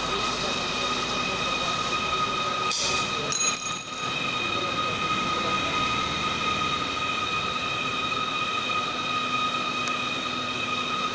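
Pharmaceutical swing conveyor with a modular plastic belt running, giving a steady whine over a mechanical hum. A brief clatter comes about three seconds in.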